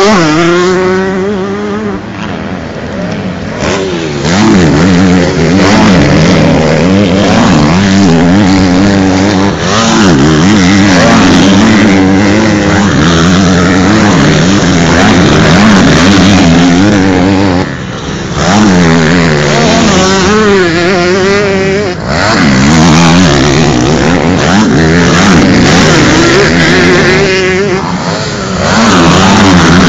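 Several 125 cc two-stroke motocross bikes racing past at full throttle, their engines revving up and down over and over as the riders shift and take jumps. Loud, with a few short drops in engine note between passes.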